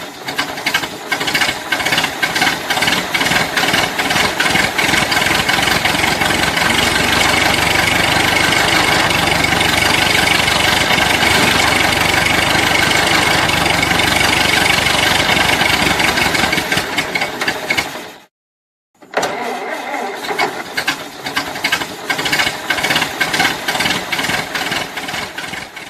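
Old car engine being cranked by its starter with an even, rhythmic churn, then catching and running steadily for about ten seconds. It cuts off abruptly, and after a brief silence the starter cranks it again.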